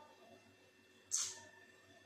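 A woman's single short breathy puff of air about a second in, a stifled laugh, over quiet room tone.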